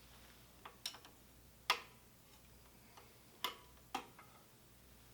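A few sharp metallic clicks at irregular intervals, from fusee sticks being worked against the pump's fusee pulley to let out return cable.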